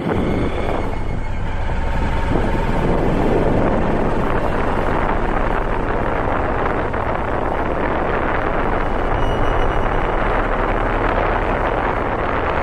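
Steady rushing wind on the microphone with a vehicle's running noise underneath, picked up from a moving vehicle.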